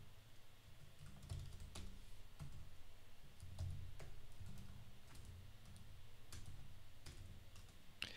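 Faint typing on a computer keyboard: irregular single keystroke clicks over a low background hum.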